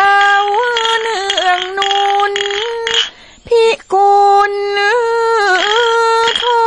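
A woman singing a slow Thai song in long held notes. She breaks off briefly about three and a half seconds in.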